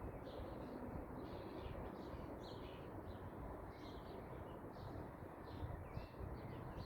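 Small birds chirping repeatedly in short high calls, over a steady low rumble of background noise.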